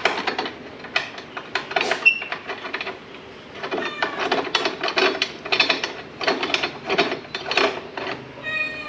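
An Allen key working a bolt on a scooter's top-box base plate: repeated bursts of metal clicking and rattling as the key turns and is reset in the bolt head, with a short pause about three seconds in.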